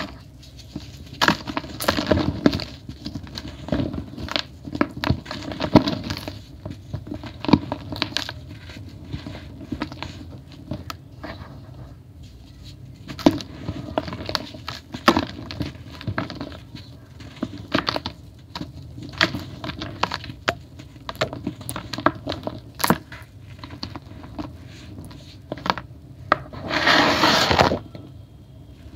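Dry grey powdery blocks crumbled and crushed by hand over a plastic basin: irregular soft crunches and crackles as chunks break apart, with crumbs and powder falling into the tub. Near the end a louder, rushing crumble lasts about a second.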